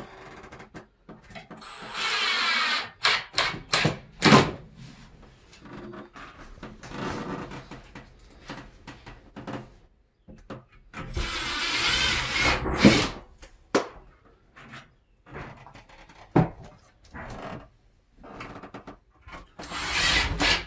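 Cordless drill boring through the shower base's flange into the wall studs in two bursts of a second or two, about two seconds in and again near the middle, with sharp knocks and clatter of handling between.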